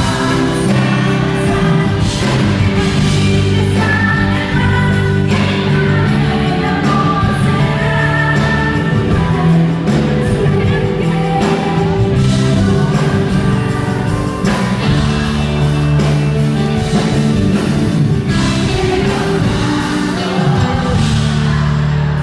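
Live pop song: a woman singing over a band with sustained low accompaniment and drum hits, recorded from the audience.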